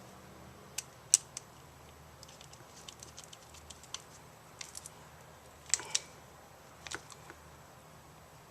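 Scattered small clicks and taps from handling an extension-cord plug and its wires, with a sharper click about a second in and two near the end.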